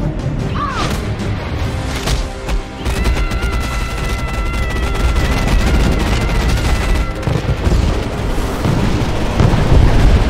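Dramatic action music under a rapid barrage of punch impact effects, with a long held high cry over the middle of the barrage and a heavy boom near the end.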